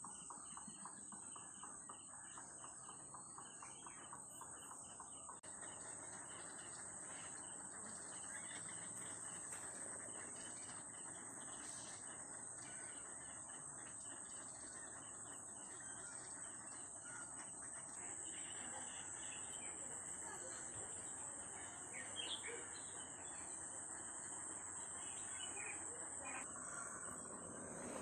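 Birds chirping and calling, faint, over a steady high-pitched hum, with a quick run of repeated notes in the first few seconds.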